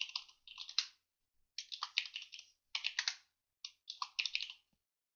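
Computer keyboard typing: four quick runs of key clicks with short pauses between them as a few words are typed.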